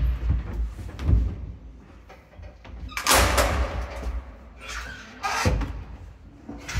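Folding inner doors of an old elevator cab being pushed open and pulled shut by hand: a few knocks and thumps, a louder rattling clatter about three seconds in, and another knock as the doors close near the end.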